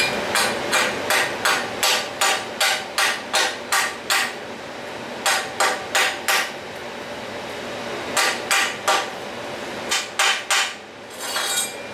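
Chipping hammer striking a freshly stick-welded steel workpiece to knock off the weld slag: quick runs of sharp metallic taps, about three a second, in four bursts with short pauses between.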